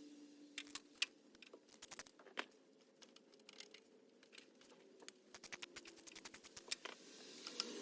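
Faint metallic clicks and clinks of hand tools working the rusty belt-tensioner bolt under the truck, scattered at first, then a quick, even run of ratchet-like clicks about five seconds in, over a faint steady hum.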